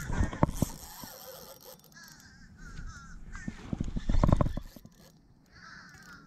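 Birds giving short, harsh, crow-like caws in small groups. A cluster of knocks and thumps about four seconds in is the loudest sound.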